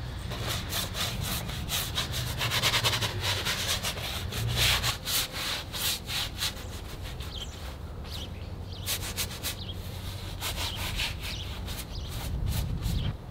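Oil paint being scrubbed onto a large canvas in quick, irregular rubbing strokes.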